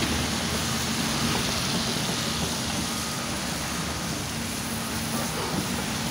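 Tracked excavator's diesel engine running steadily as it swings its boom and grab, a constant low drone with no impacts.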